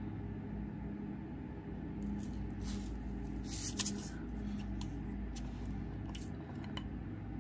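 Metal screw lid being twisted off a small jar of salt: faint scraping and a few light clicks, the loudest about four seconds in. A steady low engine drone runs underneath.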